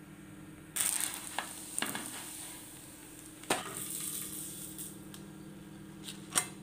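Food sizzling on a hot griddle: a hissing crackle that starts about a second in, with a few sharp clicks, over a steady low hum.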